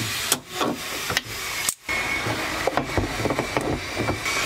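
Light metallic clicks and rubbing of hand tools and parts being worked on a boat's steering-wheel shaft and hub nut, over a steady hiss. A faint steady high whine comes in about halfway.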